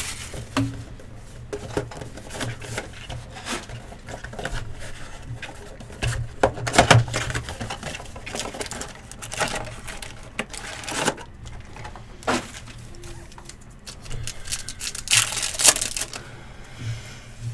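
Football trading-card boxes and packs being opened and handled: rustling and crinkling of wrappers and cardboard with scattered clicks and taps, in a few louder bursts.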